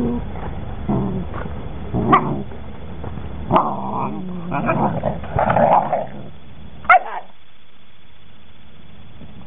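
Several 11-week-old working-line German Shepherd puppies growling and barking as they play-fight, in a string of short, irregular calls. The last and loudest is a sharp one about seven seconds in.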